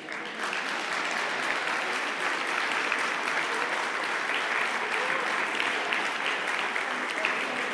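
Spectators clapping their hands in applause. The clapping starts about half a second in and keeps going at an even level.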